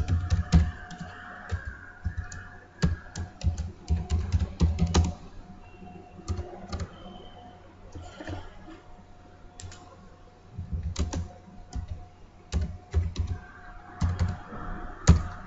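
Computer keyboard typing: quick runs of keystrokes, in two spells with a pause of about five seconds between them.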